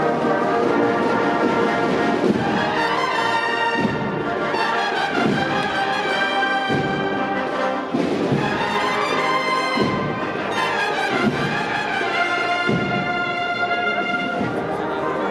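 Brass band playing music with long, held notes that change every second or two, with trumpets and trombones.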